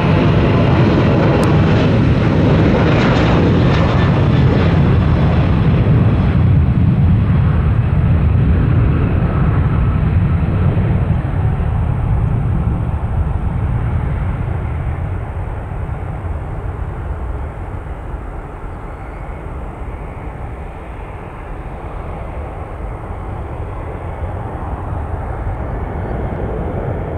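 Jet airliner engines: a loud, deep rumble with a hiss on top that dies away about six seconds in. The rumble then eases off over the following seconds and swells a little again near the end.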